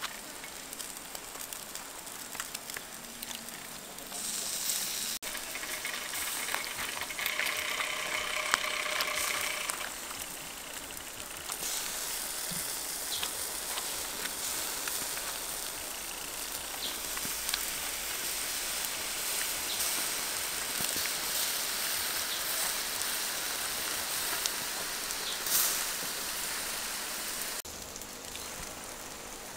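Honey-glazed duck sizzling on a wire grill over charcoal as glaze is brushed on with a green stalk: a steady hiss that stops abruptly near the end.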